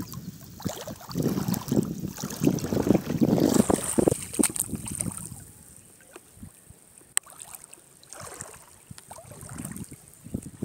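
Wind buffeting the microphone in uneven gusts for the first half, then dropping away to the quieter sound of small ripples lapping in shallow water.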